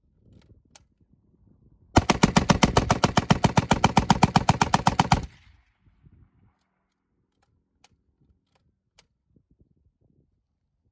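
Vickers .303 water-cooled medium machine gun firing one continuous burst of about three seconds, a rapid even string of shots at roughly eight rounds a second, which stops sharply with a brief echo. A few faint clicks follow.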